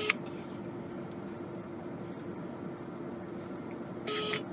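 An outgoing phone call ringing through a mobile phone's speaker: a short ringback tone sounds just at the start and again about four seconds in. Between the rings there is a steady hum in the car's cabin.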